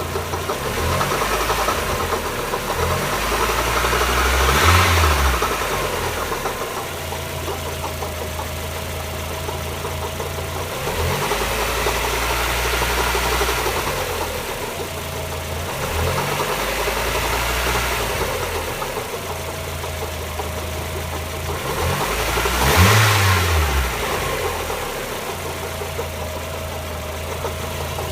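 1994 Mazda Miata 1.8-litre four-cylinder engine idling and revved up and back down several times, two of them higher, about five seconds in and near the end. Under it are lifter tick and a knocking noise that gets louder. Pulling the spark plug wires one at a time did not isolate the knock.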